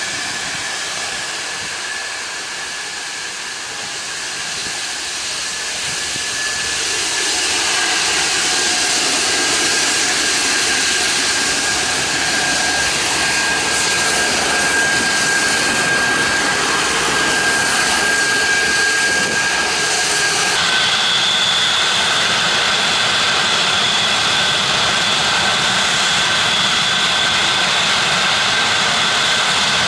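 Antonov An-124's four turbofan jet engines running as the freighter turns onto the runway, growing louder over the first ten seconds and then holding steady. A high whine runs through it, and a second, higher whine joins about two-thirds of the way in.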